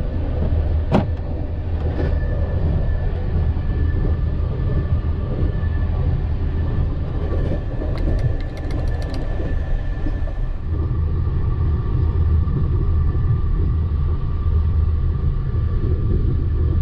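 Running noise of a ZSSK WLAB sleeper coach heard inside its compartment: a steady low rumble with faint steady whining tones above it. Two sharp knocks come in the first two seconds, and a quick run of light clicks about eight seconds in.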